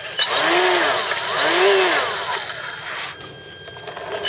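Electric motor of a Parkzone Corsair RC plane throttled up and back down twice in quick succession. Each time a whine rises and falls over the rush of the spinning propeller, then dies away about three seconds in.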